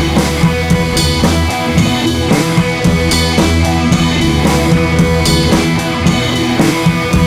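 Background rock music: a drum kit keeping a steady beat under guitar, with no singing.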